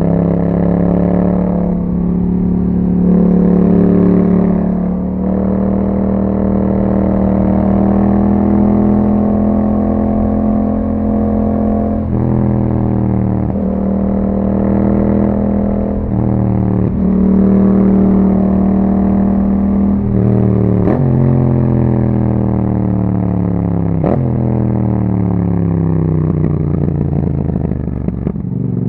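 2021 Yamaha MT-07's 689 cc parallel-twin engine running through an Akrapovic exhaust while riding. The engine pitch rises under throttle and drops sharply at several gear changes, then falls steadily near the end as the bike slows.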